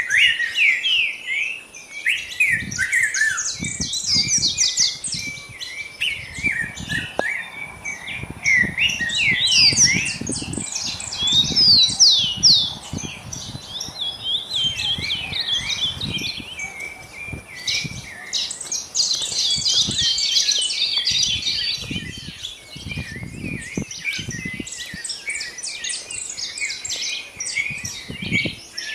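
Dawn chorus: many birds chirping and trilling at once, a dense run of short, rapid, high calls with no pause. Faint irregular low thumps sit underneath.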